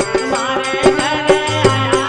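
Folk bhajan music without singing: a drum beats steadily, about four strokes a second, under held and sliding melodic tones.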